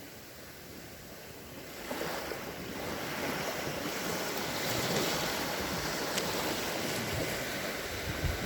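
Calm sea waves washing onto the shore: quiet at first, then a wave breaks about two seconds in and its wash swells to a peak around halfway before easing slightly.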